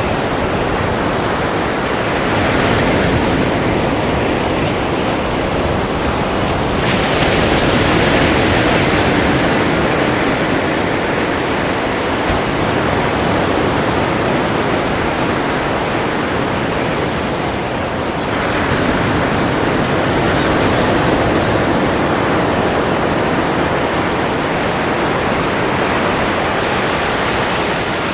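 Ocean surf: a continuous rush of waves washing in, with brighter swells of breaking water about two seconds in, around seven seconds and around eighteen seconds.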